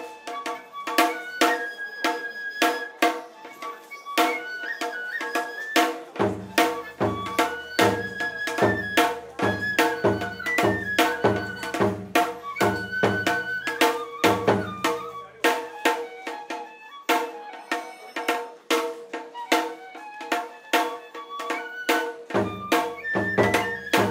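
Tsukuda bayashi, an Edo-style festival ensemble, playing: quick sticked strokes on rope-tensioned shime-daiko under a bamboo transverse flute (shinobue) melody. A large tacked-head barrel drum adds deep strokes from about six seconds in to about fourteen seconds, and again near the end.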